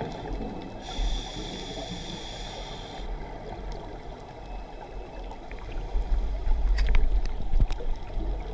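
A scuba regulator breathing cycle heard underwater: a steady hissing inhale through the demand valve from about one to three seconds in, then a low rumble of exhaled bubbles with scattered clicks near the end.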